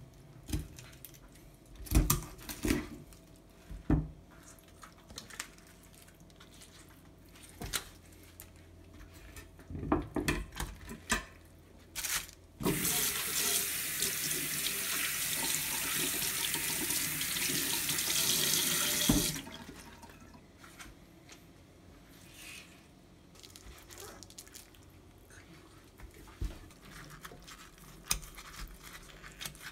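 Kitchen tap running into a stainless-steel sink for about six seconds, with a piece of morwong rinsed under the stream. Before it come scattered knocks from the fish being cut and handled on a wooden board, and after it, faint handling noise in the sink.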